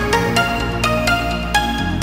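Electronic background music with a regular beat over held bass notes; the bass changes just before the end.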